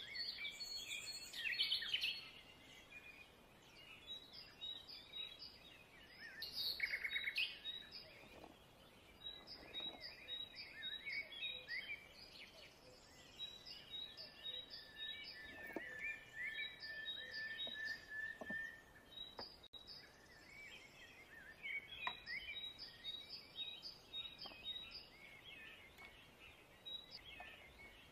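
Woodland songbirds chirping over and over, with a longer steady trilling note near the middle. A few light knocks come later, as wooden things are set down on a plank table.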